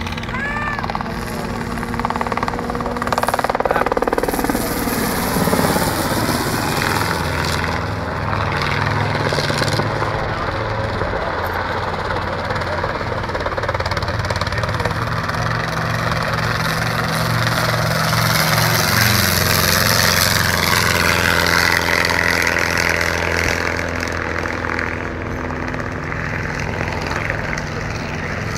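Light helicopter flying and banking low, its rotor and engine running steadily throughout. The pitch falls as it passes close about four seconds in.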